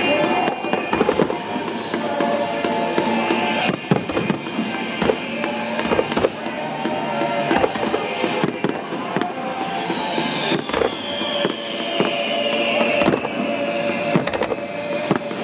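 Fireworks going off: sharp bangs and crackles at irregular intervals as ground fountains spray sparks and aerial shells burst, with music playing underneath.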